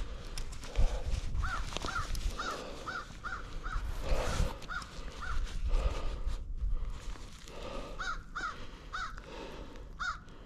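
A bird calling a run of short, repeated call notes, about three a second, pausing, then calling a few more times near the end.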